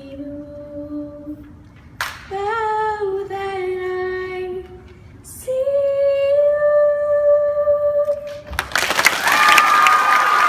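A young girl singing solo, ending the song on a long held note. About two-thirds of the way through, the audience breaks into applause and cheering.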